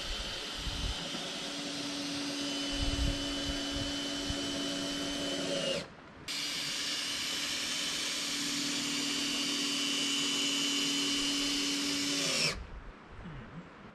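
Power drill running in two long, steady runs of about six seconds each, with a short break in between, driving screws to fix a wooden batten over the cabin's tarp. Each run ends with the motor winding down as it stops.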